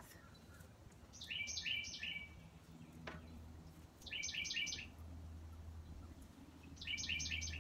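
A songbird singing three short phrases of four or five quick repeated notes, a few seconds apart, over a low steady hum.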